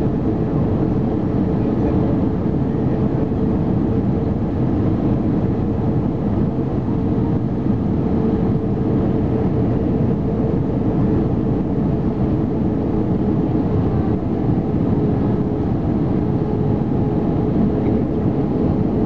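Steady cabin noise of an Airbus A319 airliner descending on approach, engine and airflow noise heard from a window seat, with a steady hum running through it.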